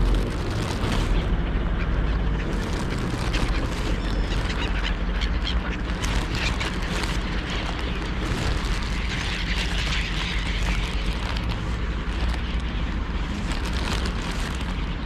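Wind rumbling on the microphone, with a flock of seagulls squawking.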